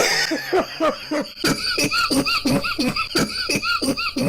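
A person in a coughing fit: a harsh cough at the start, then a fast run of short, voiced coughs, about four a second.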